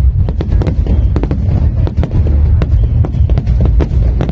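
Aerial fireworks display: many sharp cracks and pops, several a second, over a continuous heavy low rumble of booming shells.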